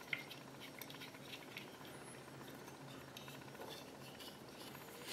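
Faint, scattered clicks and light taps of hard 3D-printed plastic parts and a metal bolt being handled and fitted together by hand.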